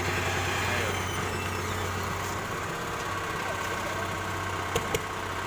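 Heavy machine engine running steadily with a low hum, and two sharp clicks close together near the end.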